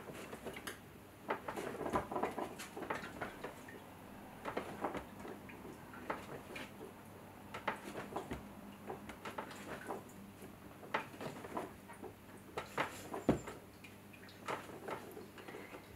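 Hands wedging a lump of soft clay on a wooden table, pressing it down and rolling it back to work the air out: faint, irregular taps and soft squashing knocks, with one louder thump late on.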